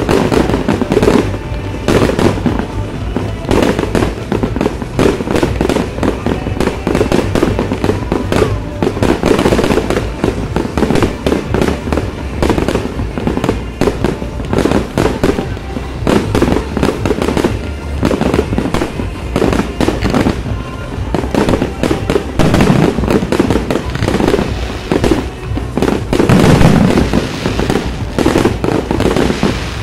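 Aerial firework shells bursting in a rapid, continuous barrage of bangs and crackles, with no let-up.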